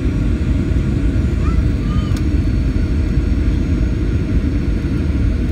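Steady low rumble of cabin noise inside a Boeing 737-800 on approach to landing: its engines and the air rushing past the fuselage. A brief faint voice rises through it about two seconds in.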